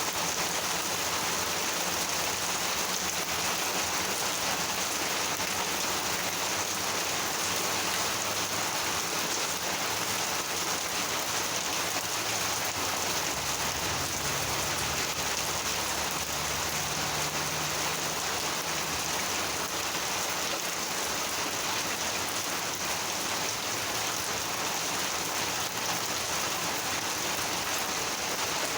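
Steady, heavy monsoon rain falling and splattering on surfaces, an even hiss that never lets up. A faint low rumble sits under it from about the middle until a few seconds later.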